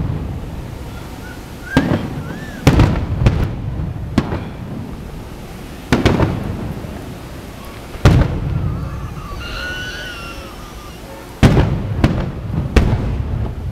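Aerial fireworks shells bursting overhead: about eight sharp booms at uneven intervals, each trailing off in a rumbling decay, with two or three coming in quick succession near the end.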